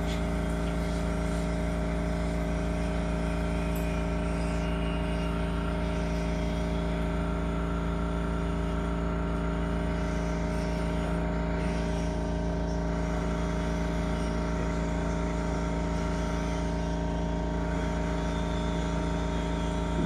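Steady machine hum with one strong low pitch, heard from inside a stopped electric train, cutting off abruptly at the very end.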